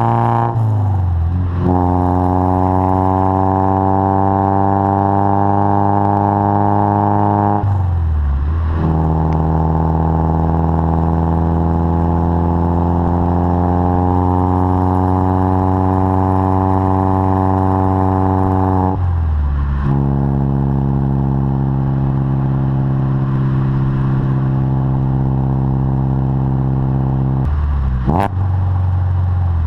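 Mazda MX-5 ND four-cylinder engine heard at the tailpipe of a full exhaust system, essentially a Global Cup exhaust with a catalytic converter added, driving through the gears. The note climbs slowly in each gear and drops at upshifts about a second in, about eight seconds in, about nineteen seconds in and near the end.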